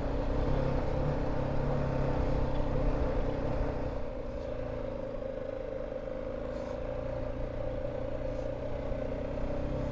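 Motorcycle engine, a BMW G 310 GS single-cylinder, running steadily under way; it eases off slightly about four seconds in.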